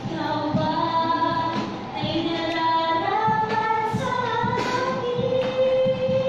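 A song: a voice singing long held notes over instrumental accompaniment with a steady beat.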